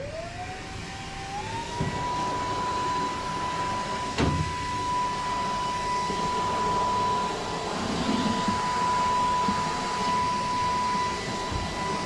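An electric motor winding up to speed with a rising whine, then running at a steady high whine over a hiss, with one sharp click about four seconds in.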